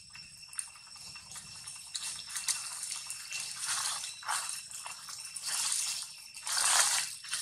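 Dry fallen leaves crunching and rustling underfoot in irregular bursts, with the loudest crunch near the end. A faint, steady, high-pitched whine runs underneath.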